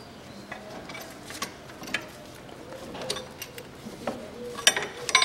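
A wrench working on an alternator mounting bolt: scattered metallic clicks, likely from a ratchet. A cluster of sharp, ringing metal clinks comes near the end.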